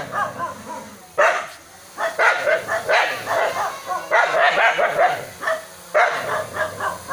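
Small dog barking at a hovering drone in repeated quick bouts, the first starting about a second in, with short pauses between them.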